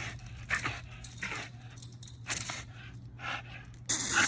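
A dog breathing hard in noisy huffs, roughly one a second, with a louder burst about four seconds in, over a steady low hum.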